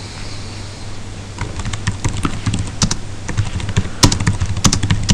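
Typing on a computer keyboard: a quick, uneven run of key clicks starting about a second and a half in.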